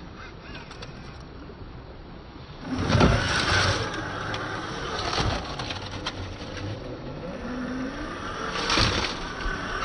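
Traxxas TRX-4 RC crawler's electric motor and gearbox whining as it crawls. A loud knock comes about three seconds in, the whine rises in pitch near the end, and another knock follows.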